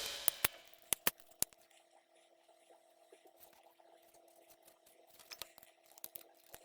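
Background music fades out, then a few faint, short clicks of a folding knife being handled come in two small clusters, near the start and near the end, over a faint steady hum.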